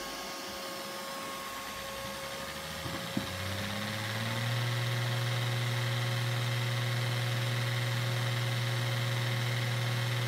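Neato robot vacuum starting up: a short click about three seconds in, then its motor spins up and runs steadily as the robot drives off.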